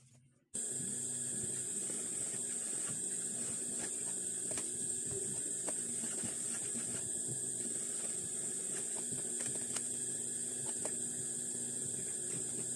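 Industrial sewing machine motor running idle with a steady hum and high hiss, starting abruptly about half a second in. Light clicks and rustles come from fabric being handled at the machine.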